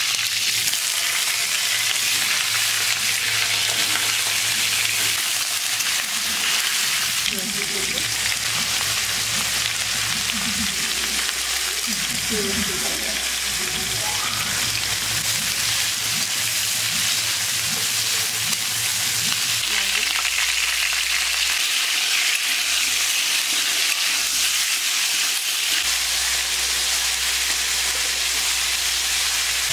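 Oil sizzling steadily in an aluminium kadai as potato chunks and then sliced onions fry, with a metal spatula stirring and scraping the pan.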